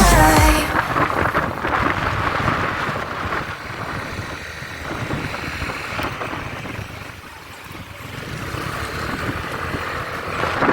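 Rushing wind noise buffeting the microphone, easing off and then building again near the end. Background music cuts off in the first second.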